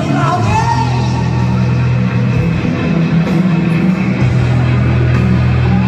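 Loud hard-rock music with electric guitar and a steady bass line.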